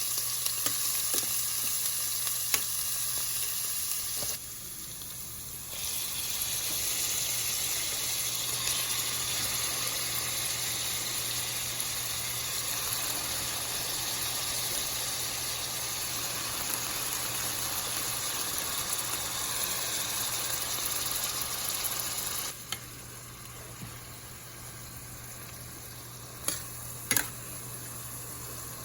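Chicken gizzards sizzling in a frying pan: a steady frying hiss that dips for a moment about four seconds in and turns quieter for the last six seconds, with a few sharp taps near the end and a steady low hum underneath.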